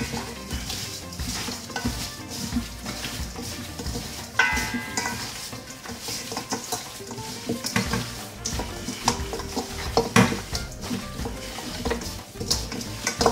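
Gloved hands mixing seasoning into raw chicken in a stainless steel bowl: irregular squishing, with soft knocks and clinks against the metal bowl throughout.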